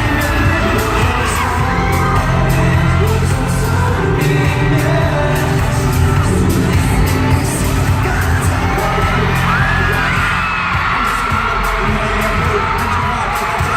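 Live K-pop concert music heard through a fan's recording: a pop song with singing over a steady heavy bass beat. From about two-thirds of the way in, high gliding screams or vocal lines sit on top of the music.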